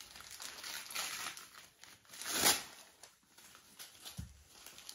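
Gift wrapping paper being handled, crinkling and tearing as a present is unwrapped, with one louder rip about halfway through and a soft low bump near the end.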